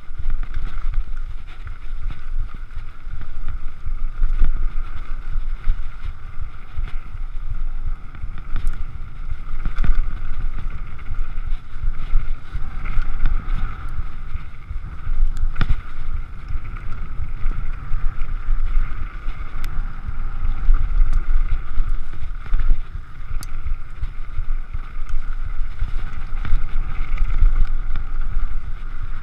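Downhill mountain bike riding fast down a dirt-and-gravel trail: wind buffeting the microphone and the tyres rumbling over the stones, with a steady buzz throughout and scattered sharp clicks and knocks as the bike rattles over bumps.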